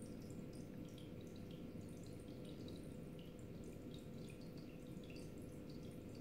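Aquarium water dripping and trickling: many small, quick plinks, several a second, over a faint steady low hum.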